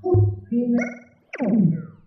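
Short synthesizer notes: a few held electronic tones one after another, then a falling swoop about halfway through.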